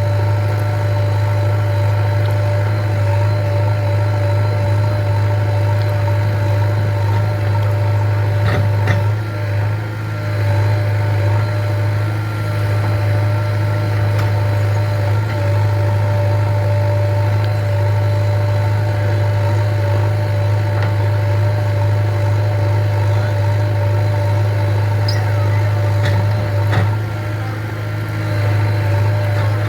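The 49 hp diesel engine of a JCB 3DX backhoe loader running steadily under work, a constant drone with a steady whine over it. Two sharp knocks come through, about nine seconds in and near the end.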